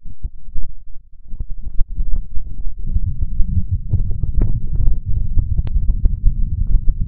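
Loud low rumble with dense crackling and popping on a handheld camera's microphone, getting heavier about three seconds in.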